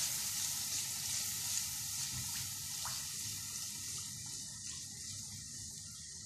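Spiced onion masala sizzling in a nonstick frying pan as yogurt is stirred through it with a wooden spoon; the steady hiss slowly dies down as the yogurt cools the pan.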